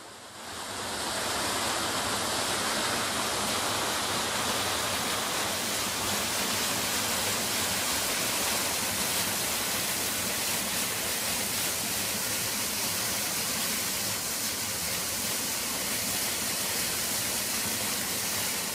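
Monatiquot River whitewater rushing over boulders and a rock ledge in rapids. It is a steady, hissing rush of water that fades in over the first second and then holds even.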